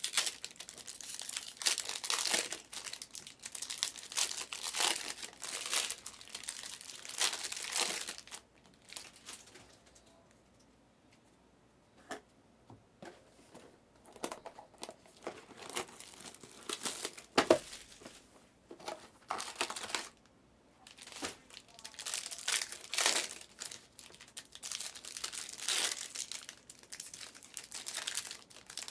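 Foil trading-card pack wrappers crinkling and tearing as packs are ripped open, in bursts with two short pauses and one sharper snap a little past halfway.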